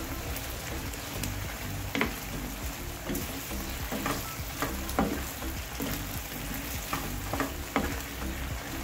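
Chicken and mushroom curry sizzling and simmering in a pan, stirred with a wooden spatula that scrapes and knocks against the pan about eight times from about two seconds in.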